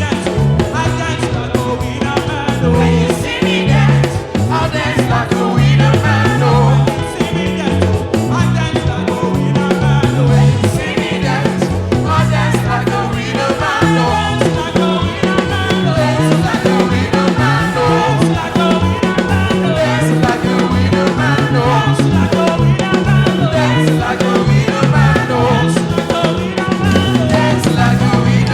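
Upbeat contemporary gospel praise music from a band with drum kit and a prominent bass line, with singing over it.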